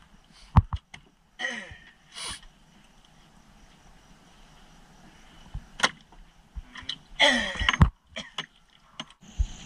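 Scattered knocks and clatter of spearfishing gear and a wooden spear gun against a small boat's plastic hull, mixed with a few short rustling, splashy bursts from handling.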